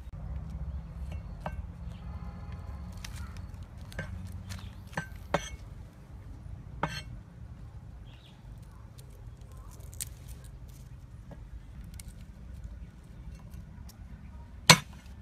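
Cleaver and garlic knocking and clicking on a wooden chopping board as garlic cloves are peeled and cut: scattered sharp taps and clinks, with one loud knock near the end.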